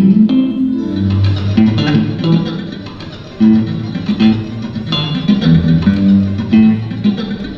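Live electric guitar music: a line of separate picked notes over some lower held notes.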